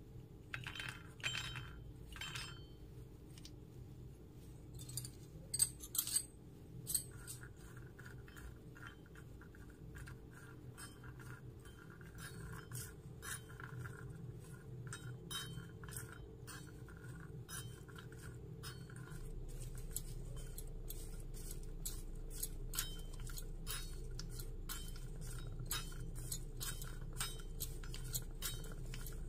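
Raw peanuts tipped into a tiny iron kadai, then stirred with a small metal spoon as they roast: light clicks and clinks of nuts and spoon against the pan, with the sharpest clinks about six seconds in.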